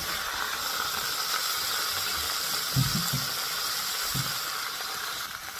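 Beef short ribs searing in hot oil in a pan, a steady sizzle as the meat browns, with a couple of soft low bumps about three and four seconds in.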